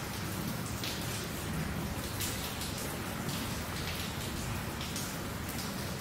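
Steady patter of rain, with brief hissy surges every second or so.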